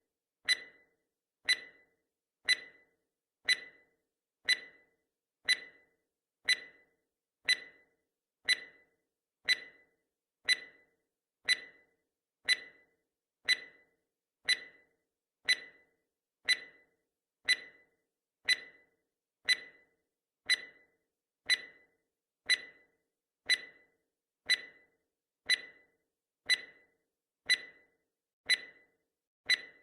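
Countdown timer's clock-tick sound effect: one sharp tick every second, evenly spaced and steady.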